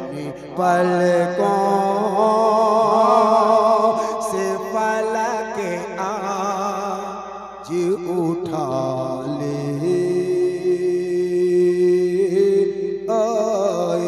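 A man singing a naat, the Urdu devotional poem, without instruments: long drawn-out melismatic notes with heavy vibrato over a steady low drone. There is a brief break and an upward glide about halfway through.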